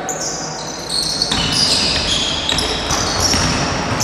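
Basketball shoes squeaking on a gym floor as players move, many short high squeaks that come thicker from about a second in.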